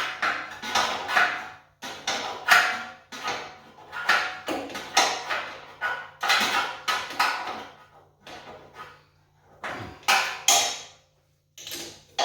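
Box wrench working the bolts that hold the feet onto the generator frame, with metallic clinking and scraping strokes about twice a second. It goes quieter about eight seconds in, then there are a few louder knocks near the end.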